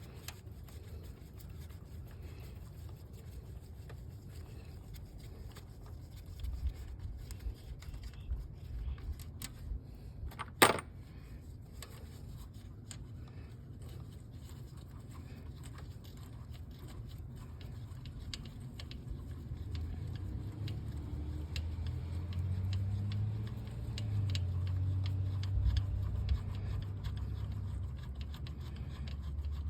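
Scattered small metallic clinks and clicks of hand tools on engine parts, with one sharp click about ten seconds in. A low hum grows louder in the second half.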